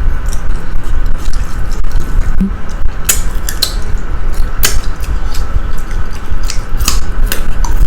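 Spoons and cutlery clinking against plates and bowls during a meal: scattered sharp clicks, a dozen or so, over a steady low hum.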